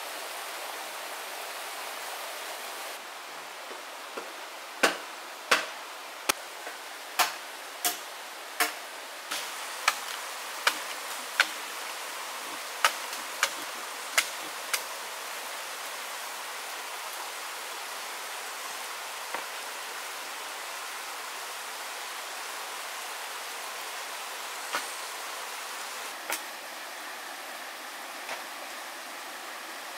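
A run of about fifteen sharp knocks, roughly three every two seconds, starting about five seconds in and stopping about ten seconds later, then a few single knocks spaced apart; under them a steady hiss.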